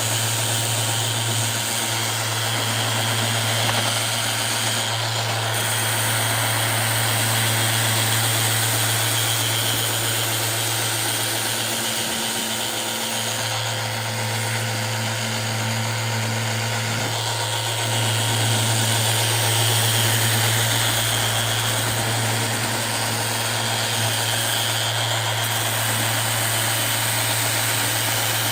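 Handheld power sander running steadily with a low hum and hiss, smoothing a bonded seam on a sink countertop.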